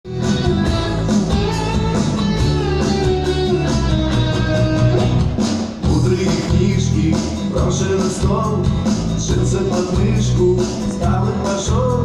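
Live band playing a song's instrumental intro: a steady beat and bass line with a melodic lead moving over it.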